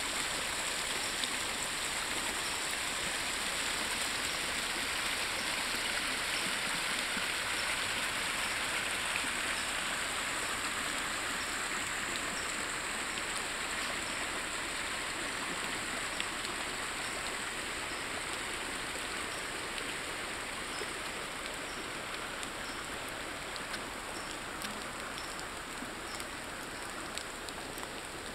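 Steady rush of running water from a normally dry creek swollen by heavy rain, growing a little fainter toward the end.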